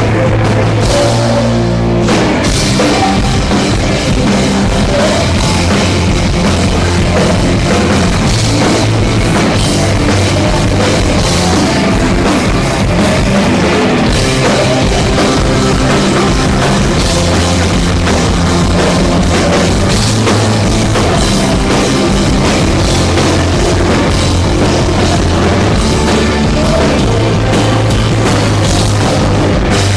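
Rock band playing live and loud, with a drum kit and a steady moving bass line throughout.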